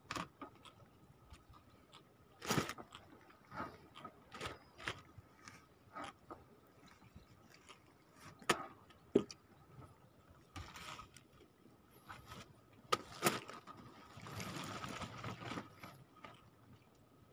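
Scattered knocks and scrapes of a shrimp trawl net and rope being handled on a small wooden boat, at irregular intervals, with a longer rustling stretch near the end.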